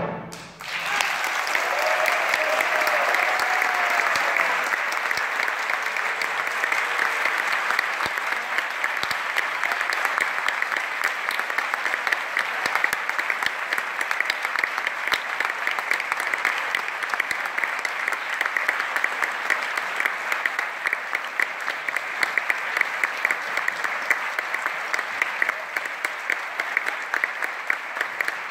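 Concert audience applauding, a dense steady crackle of many hands. It swells up about a second in, just as the orchestra's last note dies away.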